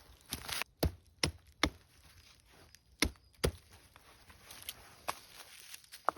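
A hand tool striking hard, with sharp knocks: three in quick succession about a second in, then two more about two seconds later. Lighter knocks and scuffing follow near the end.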